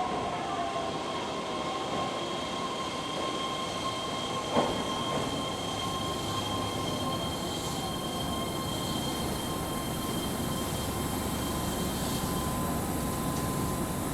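Keihan electric train standing at the platform, its equipment giving a steady two-tone electrical whine over a background rumble, with a single sharp knock about four and a half seconds in.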